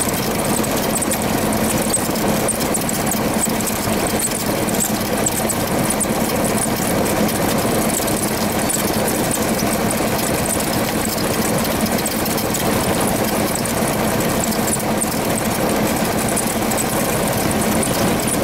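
Cessna 172RG's four-cylinder Lycoming O-360 piston engine running steadily at low taxi power, heard from inside the cockpit.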